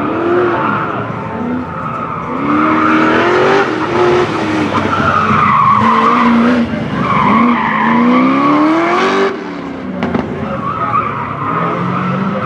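1965 Chevrolet Corvette's V8 revving up and dropping off again and again as it is driven hard through an autocross cone course, with tyres squealing through the turns. The squeal eases for about a second just before ten seconds in, then starts again.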